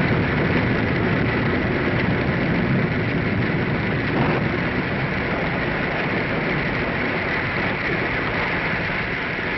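Storm sound effect for a radio drama: a steady rush of rain and wind, easing slightly toward the end.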